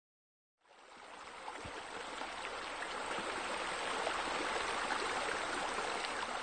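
Steady running and splashing water, like a wall scupper spilling into a pool. It fades in about half a second in and builds to a constant rush.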